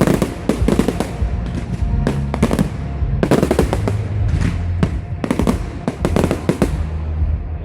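Fireworks bursting: clusters of sharp bangs and crackles, thickest near the start, around three to three and a half seconds in, and again from about five to six and a half seconds, over music with a steady bass line.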